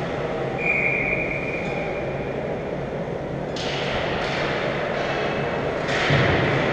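Ice hockey rink ambience: a steady arena hum and rumble, with the scrapes and clacks of skates, sticks and puck on the ice. Several sharper hissing scrapes come from about three and a half seconds in.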